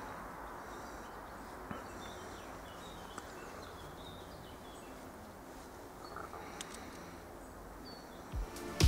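Quiet woodland ambience: a steady background hiss with scattered small bird chirps. Music with a heavy beat comes in at the very end.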